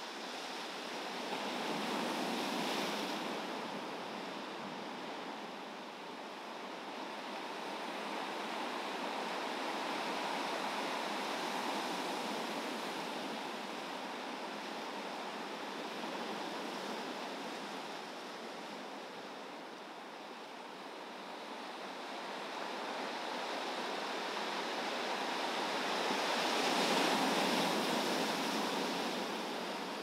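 Ocean surf breaking and washing up a shore as a continuous rush with some wind. It swells a few seconds in and again, loudest, near the end.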